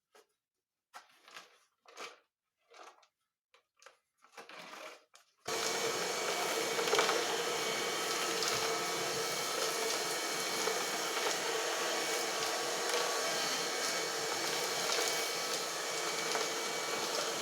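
Homemade 12-volt vacuum cleaner driven by a dryer motor: a few short handling knocks, then about five seconds in it switches on and runs steadily, with a rush of air and a steady motor tone.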